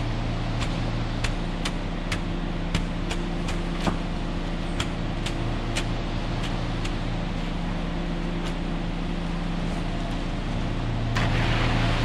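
An engine running steadily, with sharp ticks about twice a second through the first half that thin out later, and a louder rush of noise coming in near the end.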